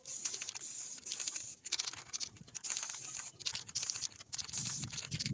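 Aerosol spray-paint can hissing in repeated short bursts, with brief breaks between sprays.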